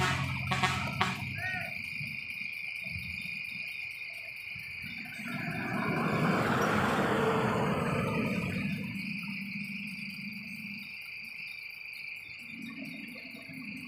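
Insects droning in a steady high-pitched chorus, with a motorcycle fading away in the first second and a vehicle passing on the road as a swell of road noise that rises and falls around the middle.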